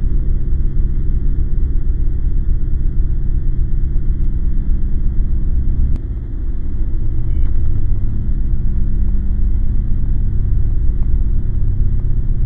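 Loud, steady low rumble with a faint steady hum in it, like engine or wind noise. About six seconds in a sharp click comes and the rumble dips for a moment before it returns.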